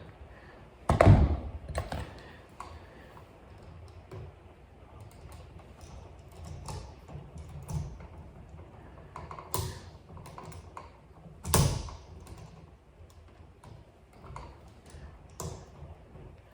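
Hand work on a wall outlet: scattered light clicks and taps of tools and parts being handled, with two louder knocks, one about a second in and one near the last third.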